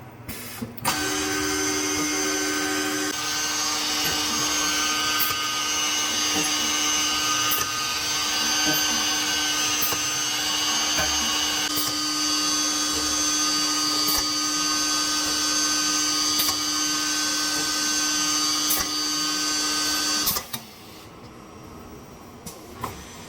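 CNC nesting router spindle cutting a wood panel: a steady tone over a wide cutting hiss, starting suddenly about a second in and stopping abruptly near the end.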